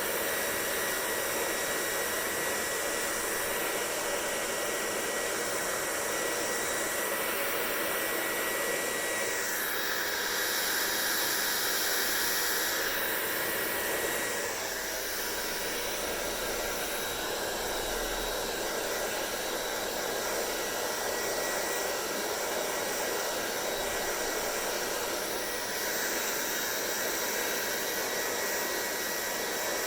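Hair dryer blowing steadily, a rush of air with a thin high whine that stops about halfway through; the sound of the airflow changes a little about a third of the way in and again at the halfway point.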